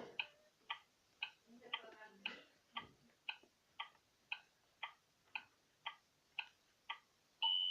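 A timer ticking steadily about twice a second, then ringing with a single bright ding near the end as it runs out, signalling that the modelling-dough cakes in the toy oven are done.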